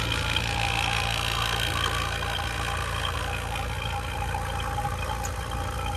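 A 5 CFM residential HVAC vacuum pump running steadily, evacuating a new air conditioner's refrigerant line set to pull out air and moisture.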